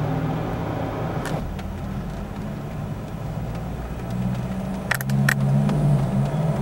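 Road traffic heard from inside a parked car: a low, steady vehicle hum that swells about four seconds in. There are a few sharp clicks about a second in and twice around five seconds.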